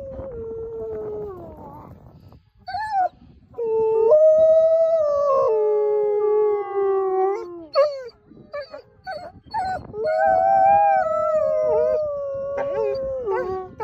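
Two wolves howling together in long, gliding howls, often at two different pitches at once. A run of short yips and broken calls comes about halfway through, and then a last long howl.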